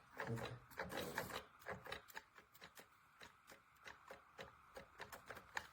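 Maped Couture Design children's sewing machine making faint, irregular mechanical clicks and taps. They are busier in the first couple of seconds, then thin out to scattered ticks.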